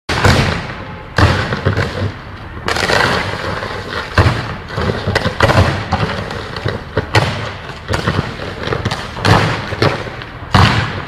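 Electrical short circuits going off again and again: sudden loud arcing bangs about every one to one and a half seconds, each fading away over about a second.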